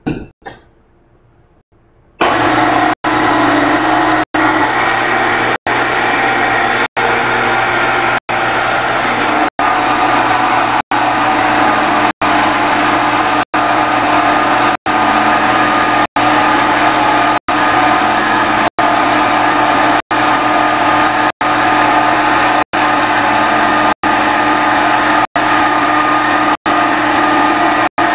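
Electric stainless-steel grinding mill starting up about two seconds in, then running steadily under load with a high whine, grinding roasted cacao nibs into paste (cocoa liquor). The noise is broken by brief, evenly spaced dropouts about every second and a half.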